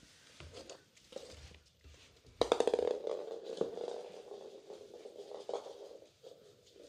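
Puppies scuffling and scratching on a wooden floor, then a sudden louder rough, pitched sound about two and a half seconds in that trails off unevenly over the next few seconds.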